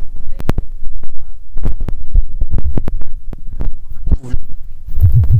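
Loud, distorted low thumping with many sharp clicks. Rhythmic low pulses set in near the end. This is an edited-in sound effect laid over a meme clip.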